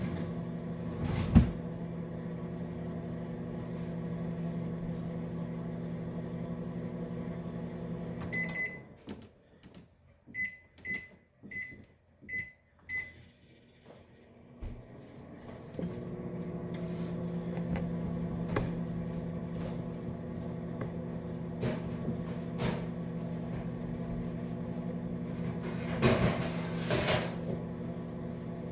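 Microwave oven running with a steady hum. About a third of the way in it stops with a beep, a run of five short high beeps follows, and a few seconds later it starts humming again. A sharp knock comes early and some clatter comes near the end.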